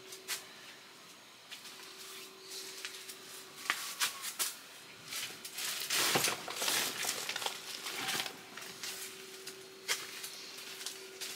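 Rustling and crinkling with scattered light knocks and footsteps on a plastic tarp floor, loudest about six seconds in. A faint steady hum runs underneath.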